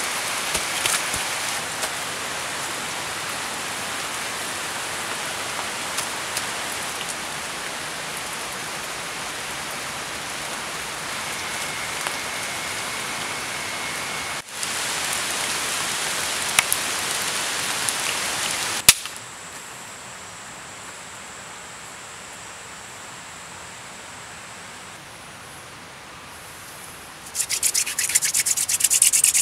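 Steady rain hissing for the first two-thirds, then quieter. Near the end a wooden hand-drill spindle, spun fast between the palms, grinds against a wooden fireboard: friction fire-lighting.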